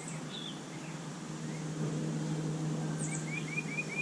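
Birds chirping in the background, ending with a quick run of four or five short rising chirps, over a steady low hum.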